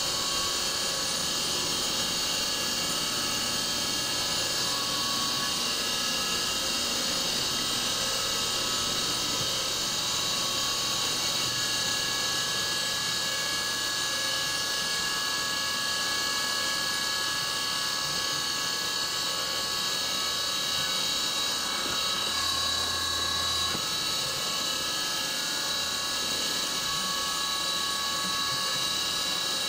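CNC mill cutting low-carbon structural steel with a 1/8-inch four-flute TiAlN end mill at 5000 RPM under flood coolant: a steady, high-pitched whine of several tones over a hiss.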